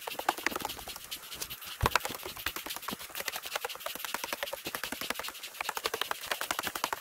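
Footsteps climbing wooden stairs: a rapid, steady patter of shoes on the treads, with one heavier thump about two seconds in.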